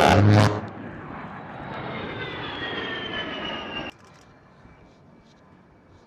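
The end of a very loud burst, then the A-10 Thunderbolt II's twin turbofan engines whining past with a falling pitch. About four seconds in the jet sound cuts off abruptly to a much quieter background with a faint steady tone.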